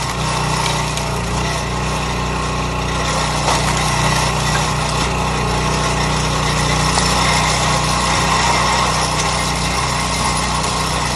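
Small gas engine running steadily at a constant speed, with a couple of brief knocks.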